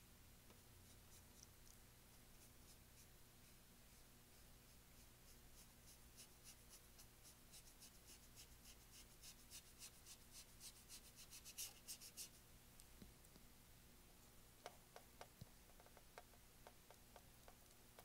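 Faint, rapid strokes of a paintbrush scrubbing acrylic paint onto canvas, quickening and growing louder until they stop about twelve seconds in. A few light ticks follow near the end.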